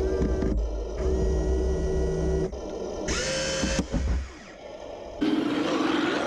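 Heng Long 1/16 Challenger 2 RC tank's electric motors and metal gearboxes whining, in short clips that cut off abruptly. There is a short burst of hiss about three seconds in.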